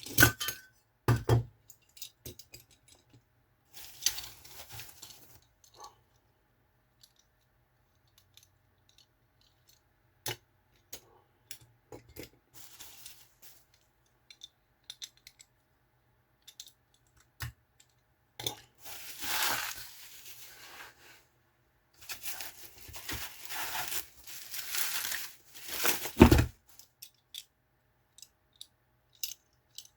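Packaging being unwrapped, in several stretches of rustling, with sharp clicks and knocks of metal diecast toy vehicles being handled and set down; the heaviest knock comes near the end.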